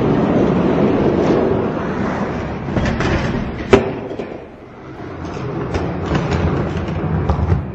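Spin Master die-cast monster trucks rolling down an orange plastic track: a steady rattle of wheels on plastic. A sharp clack comes about halfway through, and a run of clicks comes near the end.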